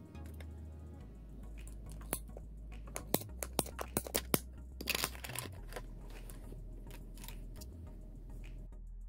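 Ratcheting PVC pipe cutter clicking about half a dozen times as it squeezes into a plastic pipe, with a short crunch about five seconds in as the blade goes through. Background music with a steady bass plays throughout.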